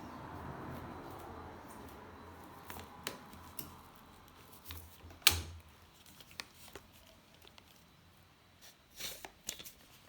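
Scattered clicks and knocks of objects being handled, the sharpest about five seconds in and a quick cluster near the end, after a soft rushing noise that dies away over the first two seconds.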